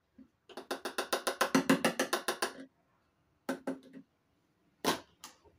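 A quick drum-roll-like run of hollow taps, about nine a second for two seconds and growing louder, followed by a few single knocks.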